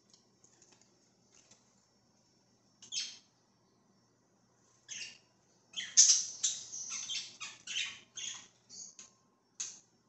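Budgerigars chirping and squawking in short, high-pitched calls. A few single calls come first, then a quick run of calls about halfway through, which is the loudest part.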